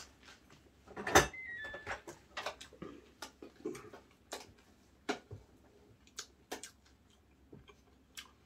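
Spoons clicking and clinking against bowls and dishes at a meal. There is a louder clack with a short ring about a second in, then scattered light taps.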